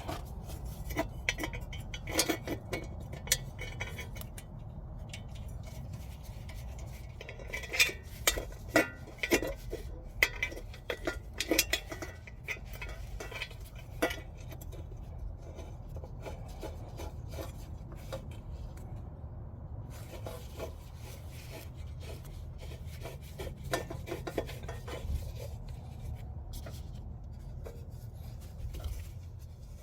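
Irregular metallic clinks, taps and scrapes of bolts and hand tools on exhaust parts as they are fitted and fastened, coming in clusters with pauses between, over a steady low hum.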